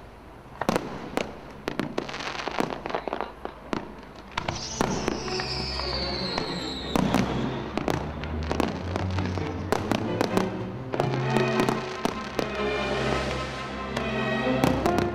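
Fireworks bursting and crackling in quick, irregular bangs, with music coming in about four seconds in and carrying on under the bursts.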